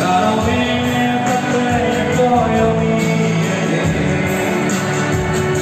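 A man's voice singing a pop song into a microphone over loud instrumental backing, with held, sliding sung notes.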